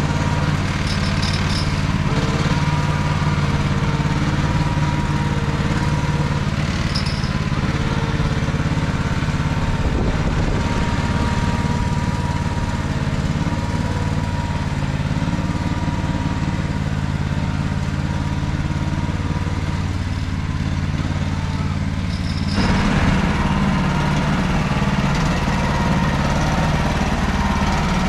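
MT8-070 Mini two-wheel walking tractor's engine running steadily under load while ploughing with a ZP-130 plough. About 22 seconds in the engine grows louder and harsher.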